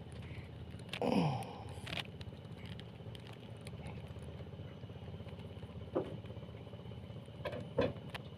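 Fishing boat's engine running at a steady low hum. A short sound falling in pitch comes about a second in, and a few sharp clicks come near the end.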